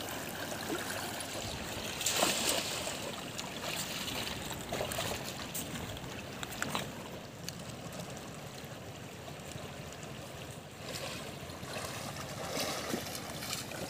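Steady rush of the Siang River's shallow water running over stones, with a brief louder swish about two seconds in and a few light splashes.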